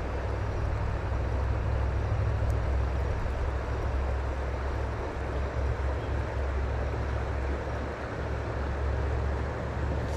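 Steady rushing of river water, with a heavy low rumble underneath.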